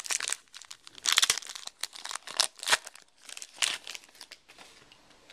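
Trading-card pack wrapper crinkling and tearing as it is pulled open by hand: a rapid run of irregular crackles that thins out over the last second.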